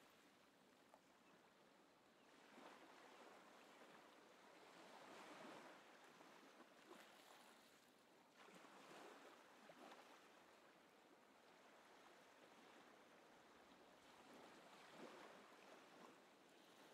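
Faint rushing water, a soft even wash that swells and eases every few seconds, with a few small clicks.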